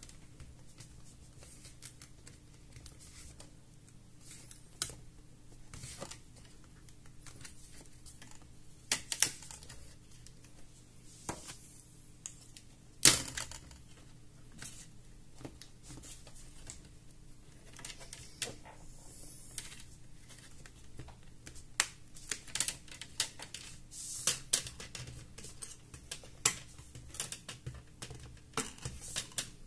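Plastic display bezel of an Asus Vivobook S15 laptop being pried and peeled off the LCD panel, where a little glue holds it: scattered sharp clicks and snaps of plastic, the loudest about 13 seconds in and more frequent near the end, over a faint steady hum.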